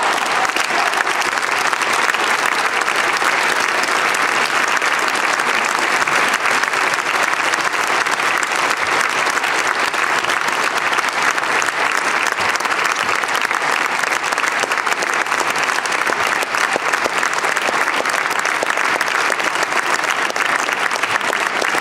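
Audience applauding, a dense, unbroken clapping that holds at a steady level throughout.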